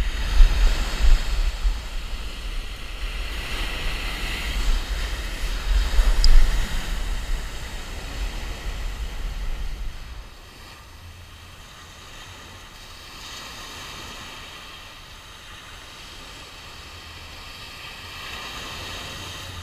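Sea waves breaking and washing on a pebble beach, with wind buffeting the microphone and gusting for the first ten seconds or so. After that comes a softer, steady surf wash.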